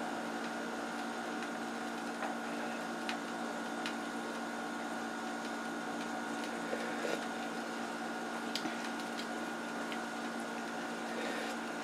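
Steady mechanical hum with a constant low tone and a thin higher whine, broken by a few faint light clicks.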